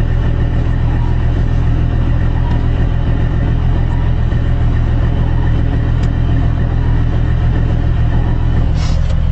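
Semi-truck's diesel engine idling, a steady low rumble heard from inside the cab.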